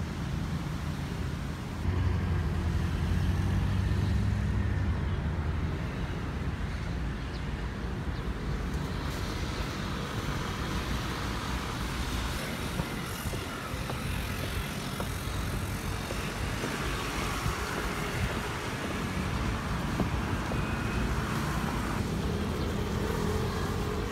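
Steady outdoor city traffic noise, with a louder low rumble from about two to six seconds in.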